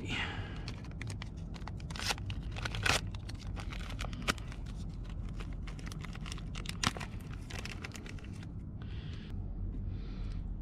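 Thin translucent plastic bait-bag sheet and its packet crinkling and tearing as they are pulled apart by hand: a dense run of sharp crackles with a few louder snaps, stopping about eight and a half seconds in.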